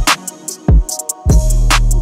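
Background music with a deep bass line and a drum-machine beat; the bass drops out for a moment just after the start, leaving the drum hits.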